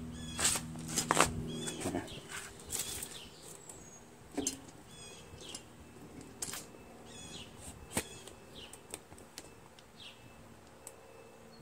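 Birds chirping in the background in repeated short trills, with a few sharp handling clicks and a faint steady low hum that fades out about two seconds in.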